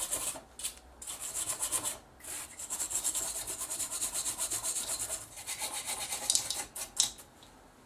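Brush scrubbing the solder side of a circuit board wet with PCB cleaner, in quick back-and-forth strokes with a couple of brief pauses, dying away near the end. The board is being cleaned of flux residue left over from soldering.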